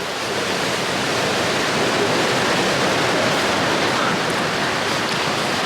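Steady rushing noise, even and without pitch, that swells slightly in the first second and then holds.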